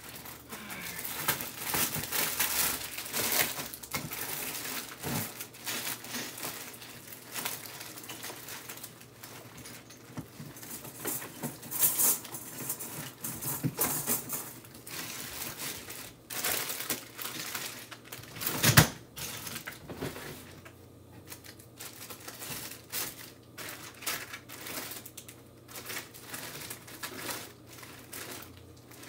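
Rummaging through a drawer of craft supplies: irregular clicking and clattering of small items knocked together, with rustling and crinkling of packaging, and one louder knock a little past halfway.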